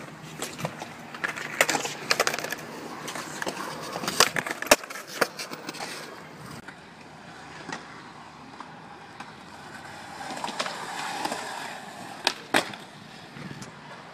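Skateboard on concrete: wheels rolling, with a quick string of sharp clacks from the board and trucks hitting the ground in the first five seconds, and a couple more loud clacks near the end.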